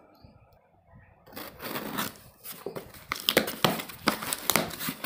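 A cardboard shipping carton being pulled open by hand: crinkling and tearing of cardboard, starting about a second in and getting louder, with many sharp cracks.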